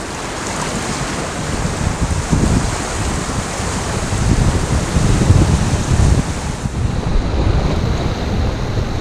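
Ocean surf washing on a beach, with wind buffeting the microphone in gusts that grow stronger from about two seconds in.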